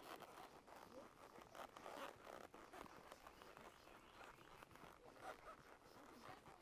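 Faint scratchy rustling with soft, irregular clicks, barely above near silence.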